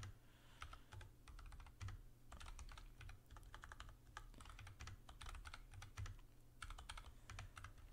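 Typing on a computer keyboard: faint, quick runs of keystrokes broken by short pauses.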